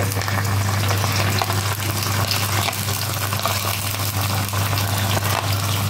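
Hot oil sizzling in an iron kadhai with onion and curry leaves as mashed boiled potato is spooned in, with a few light spoon scrapes against the pan, over a steady low hum.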